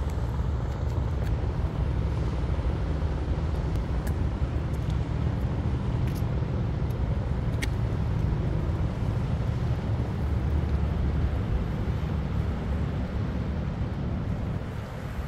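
Steady low rumble of wind buffeting the microphone, over choppy water washing against the breakwater rocks.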